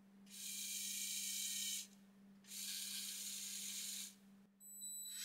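Two bursts of compressed air hissing out, each about a second and a half long with a short pause between them, from the pneumatic system of a Lego Technic steam locomotive. A faint steady hum sits underneath.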